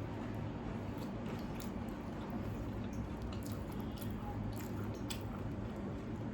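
Close-up mouth sounds of eating soaked fermented rice (panta bhat): wet squishing and chewing with small clicks, over a steady low hum.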